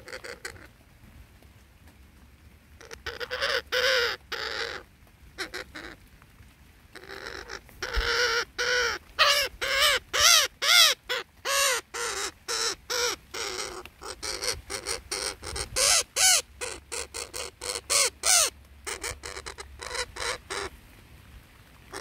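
Parrots squawking: many short, harsh calls, each rising then falling in pitch, coming in quick runs with brief pauses between them.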